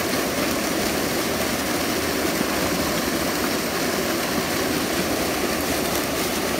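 Steady rush of fast-flowing stream water running over rocks.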